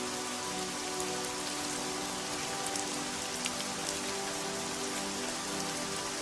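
Steady rain falling, with scattered droplet ticks, over soft held music notes underneath.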